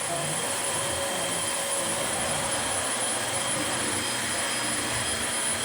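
Dyson DC25 Animal upright vacuum cleaner running steadily: rushing air under a constant high-pitched motor whine.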